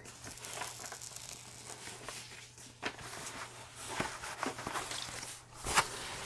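Rustling and crinkling of a large rolled diamond painting canvas and its plastic release film as it is unrolled and handled, with a few light clicks. A faint steady low hum runs under it and stops near the end.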